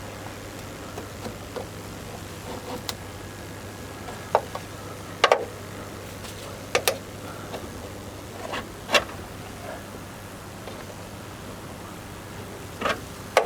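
A steady low mechanical hum, like an idling engine, with a scattered handful of short sharp clicks and taps.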